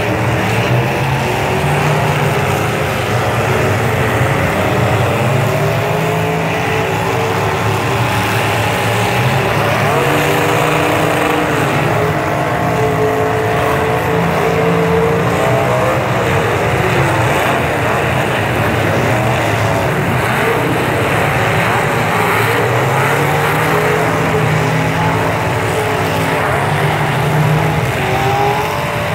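Several demolition derby trucks' engines revving at once, their pitches rising and falling and overlapping over a dense, steady din.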